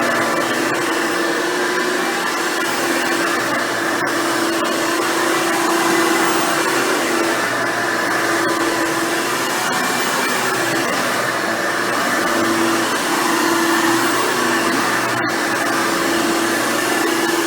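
Hoover Futura Dimension upright vacuum cleaner running steadily while vacuuming: a constant motor hum with a held low tone over airflow hiss, wavering slightly in pitch as it is pushed around.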